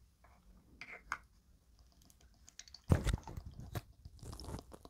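Hands working a small plastic toy drink dispenser and its upturned plastic bottle: a few faint clicks, then from about three seconds in a cluster of louder plastic clicks and knocks with dull thumps.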